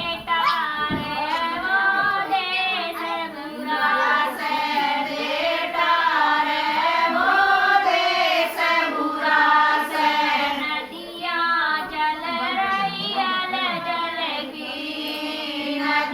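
Voices singing together a Haryanvi banna, a traditional wedding folk song for the groom, in a high register and without pause.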